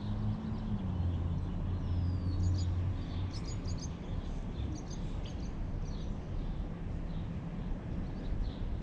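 Low hum of traffic on the road over the bridge, loudest in the first three seconds, with small birds chirping several times about two to five seconds in.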